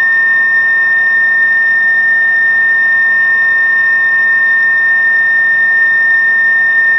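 Fire dispatch alert tone over a scanner radio: one long, steady, high-pitched tone at an unchanging level, sent between the first-alarm dispatch announcements.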